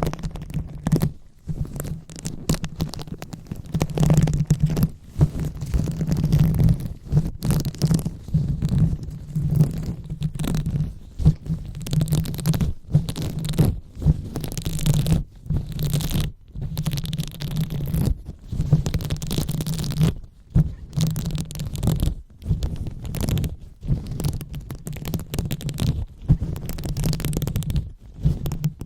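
Hands rubbing and massaging directly on a microphone: continuous close rubbing with a low rumble and a scratchy texture, broken now and then by short pauses.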